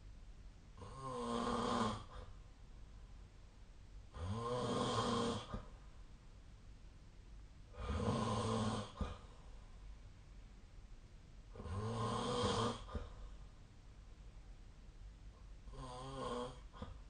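A sleeping person snoring: five snores at a steady rhythm, about one every four seconds, each lasting a second or so.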